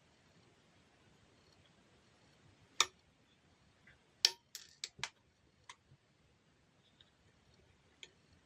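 A handful of sharp, separate clicks and clinks of hard objects, about seven in all. The loudest come about three seconds in and just after four seconds, with a quick cluster right after and a few fainter ones later, over quiet room tone.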